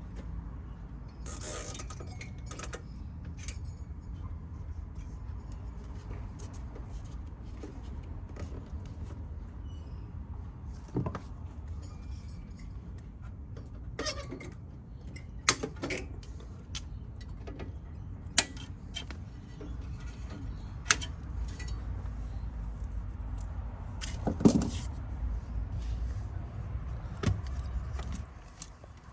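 Scattered sharp clicks and metallic clinks of handling, like tools or small parts being picked up and set down, over a steady low rumble.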